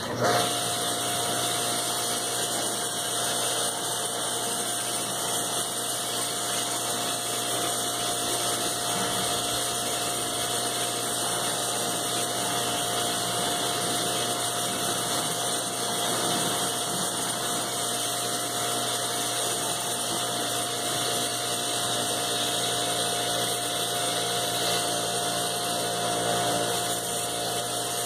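Stihl RE 109 electric pressure washer running under load as it sprays foam through the lance: a steady motor and pump hum at one constant pitch with a hiss of spray over it. It switches on suddenly right at the start, as the trigger is pulled.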